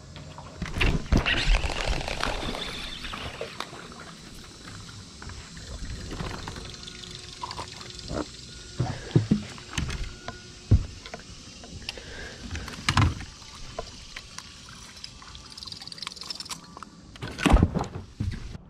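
Water splashing and several sharp knocks and thumps on the deck of a bass boat while a hooked bass is brought in at the boat's side, the loudest knock near the end.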